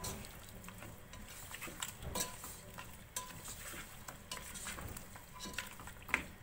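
A spoon stirring and scraping through chicken, tomatoes and spices frying in oil in a pot. Irregular scrapes and clinks of the spoon against the pot sound over a light sizzle, with one sharper clink near the end.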